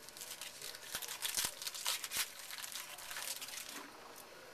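Crinkling of a trading-card pack wrapper being handled and opened by hand: a run of fine crackles, busiest in the middle and dying away near the end.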